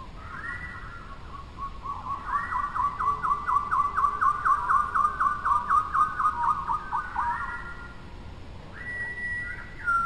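A songbird singing: a few short whistled phrases, then a long run of quick repeated notes, about three a second, for roughly five seconds, and a held whistle near the end.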